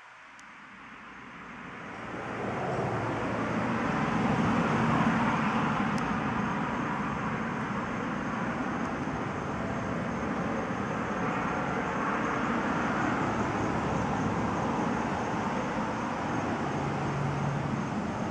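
Steady rushing outdoor background noise of the kind distant road traffic makes, rising over the first two seconds and then holding even.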